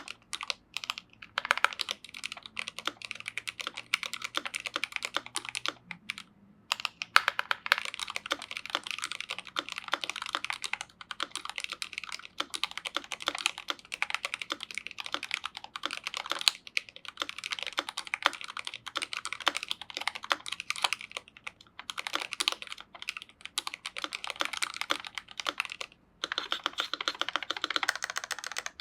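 Fast continuous typing on a GMMK Pro mechanical keyboard with lubed Gateron Ink Black V2 linear switches and Pressplay keycaps: a rapid run of key clacks, with a few short pauses between bursts.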